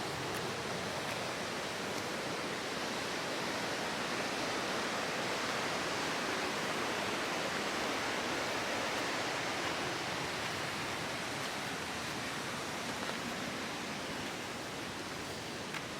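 Ram Falls' waterfall rushing in a steady, unbroken wash of falling water, swelling slightly in the middle and easing a little near the end.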